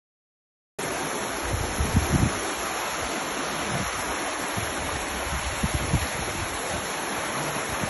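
Floodwater rushing through a breach in a river embankment: a steady rushing roar that starts suddenly just under a second in, with a few low thumps on the microphone.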